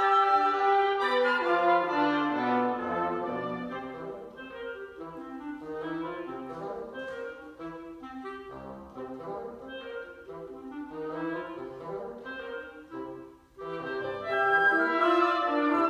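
Wind quintet of flute, oboe, clarinet, French horn and bassoon playing contemporary chamber music. The ensemble is full at the start, softer through the middle, drops out briefly about thirteen and a half seconds in, then comes back louder near the end.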